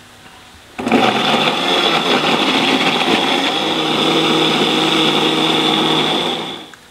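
Countertop electric blender grinding fresh red chillies into a paste. The motor starts abruptly about a second in, runs steadily with a high whine, and stops near the end.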